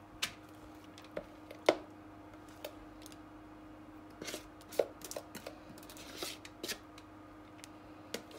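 A kitchen utensil tapping and scraping against a mixing bowl and cake tin as cake batter is spooned into the tin: scattered light clicks and knocks, with a faint steady hum underneath.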